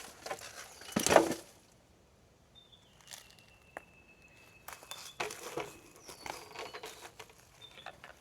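Rustling and crackling of footsteps and handling in dry bush, with one louder rustle about a second in and scattered light clicks after it. A thin, high whistling tone dips slightly and then holds for about three seconds in the middle.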